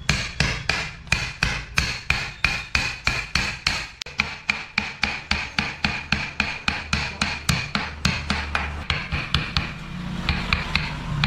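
Mallet striking a wood-carving chisel as it cuts into the wood, in a steady quick rhythm of about four taps a second, each tap with a short ringing note.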